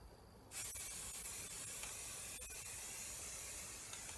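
Aerosol can of Rust-Oleum chalk spray paint hissing as it is sprayed onto a chair. A brief pause ends about half a second in, then a long, steady spray.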